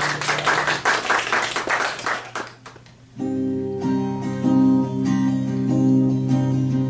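Acoustic guitar: a couple of seconds of quick, noisy strokes fade out, then about three seconds in strummed chords start ringing steadily.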